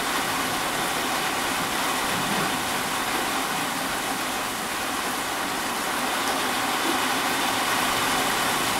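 Steady downpour of heavy monsoon rain, an even hiss with no thunder standing out.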